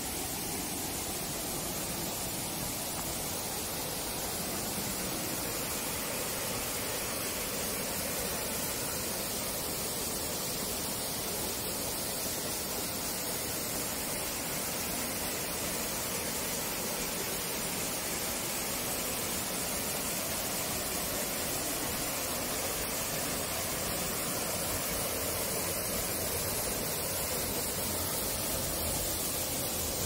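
Lyastovichi vir waterfall plunging into its pool: a steady, even rush of falling water.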